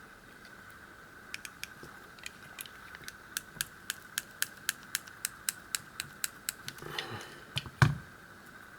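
A run of small sharp clicks, about four a second and very evenly spaced, like the ratcheting slider of a snap-off box cutter, while the cutter is worked on a key's tight wrapping; one louder thump near the end.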